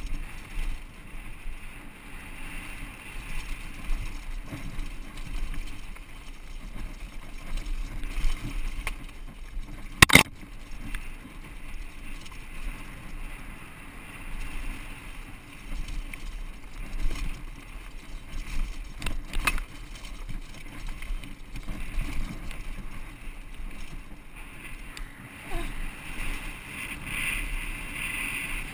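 Giant Glory downhill mountain bike riding fast over a rocky dirt trail: tyres crunching on loose stones and the bike rattling, under wind rumble on the microphone. One sharp knock about ten seconds in and a smaller one a little past halfway.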